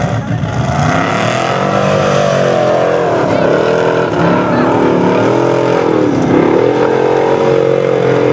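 Formula Offroad hillclimb buggy's engine revving hard on a steep sand climb, the pitch dipping sharply about three seconds in and again about six seconds in, then climbing back each time.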